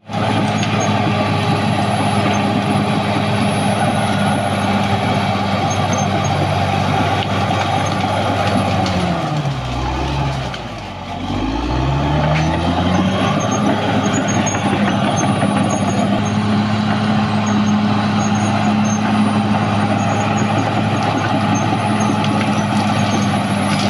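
Caterpillar D6R XL bulldozer's diesel engine running steadily under load, with a faint high whine riding above it. About ten seconds in the engine note drops and sags, then climbs back up to full working speed a couple of seconds later.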